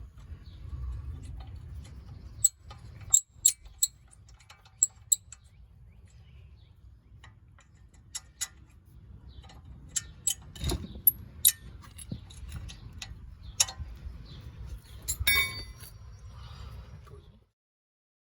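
Irregular sharp metallic clinks and taps as lug nuts and a wrench are handled while the wheel is refitted onto the hub studs. There is a ringing metal clink near the end, and the sound then cuts off.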